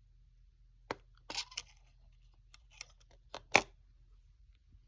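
Small smartphone parts being handled on a bench: a scattered series of light clicks and taps, about seven, the loudest about three and a half seconds in.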